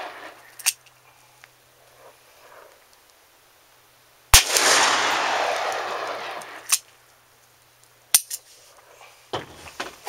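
A single .44 Magnum shot from a Taurus Raging Bull revolver firing a Hornady 300-grain XTP load, about four seconds in, its report echoing away over about two seconds. A few short sharp clicks come before and after it.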